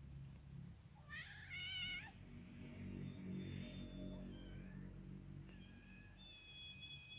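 Kitten meowing in a high pitch: a short wavering meow about a second in, fainter calls in the middle, and a longer, steadier meow near the end.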